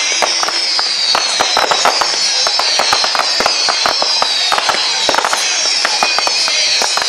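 Fireworks display: a rapid, unbroken string of bangs and crackles as shells launch and burst, with several high whistles falling in pitch over it.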